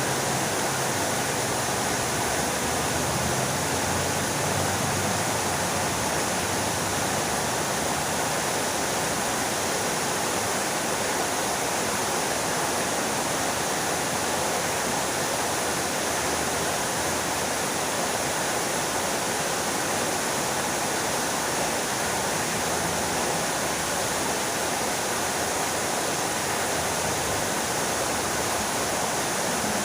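Fountain water splashing down in a steady, unbroken rush.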